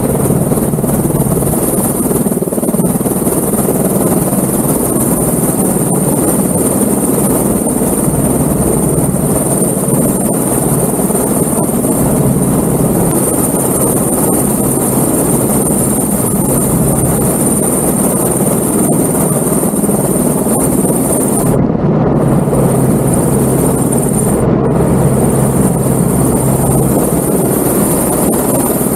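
Airbus H125 helicopter running on the ground close by, its Arriel turboshaft and turning rotor making a steady loud noise with a thin high turbine whine over it.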